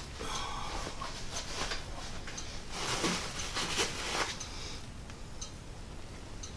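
Rustling and handling noise from hands rummaging in the top of a fabric backpack, loudest about three to four seconds in, then a few faint clicks.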